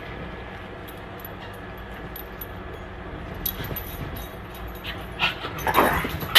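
A pug making small whining sounds, with a few louder noises near the end.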